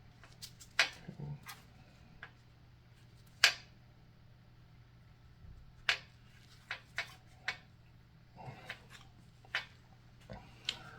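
Scattered sharp little clicks and taps of a connecting-rod bearing shell being worked and snapped into the rod end of an LS 5.3 engine, the sharpest click about three and a half seconds in. A faint steady hum runs underneath.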